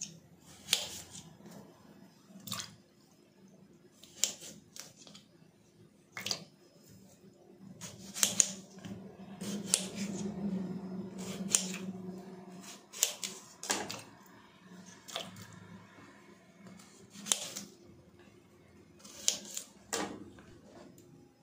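Kitchen knife cutting raw potatoes into chunks on a stone countertop: sharp clicks as the blade meets the stone, coming irregularly a second or two apart.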